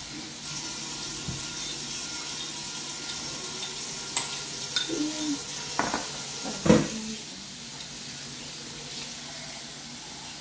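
Kitchen tap running into the sink with a steady hiss as the water is warmed, easing off about seven seconds in. A few clinks and knocks of dishes and utensils come over it, the loudest just before the hiss eases.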